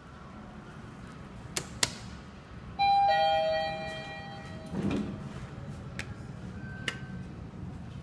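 Mitsubishi passenger elevator's arrival chime: a two-note ding-dong, higher note then lower, ringing out about three seconds in and fading within a second or so, after two sharp clicks. A duller thump follows about two seconds later.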